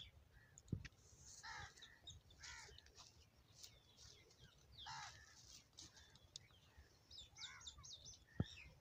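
Faint crows cawing, several short calls spaced a second or two apart, with smaller birds chirping near the end. A sharp click comes just under a second in and another near the end.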